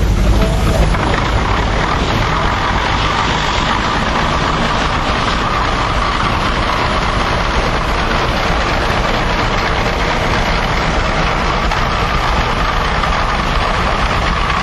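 Steady mechanical running noise: a constant high buzz over a low rumble, slightly louder in the first second.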